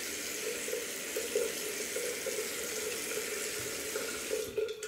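Bathroom tap running into the sink in a steady stream, rinsing up after a shave; the water shuts off near the end.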